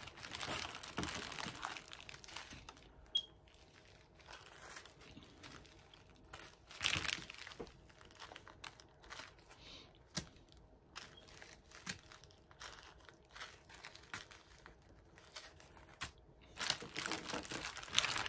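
Small plastic zip-lock bags of square diamond-painting drills crinkling and rustling as they are picked up and laid down, in irregular bursts with small clicks, loudest about seven seconds in and near the end.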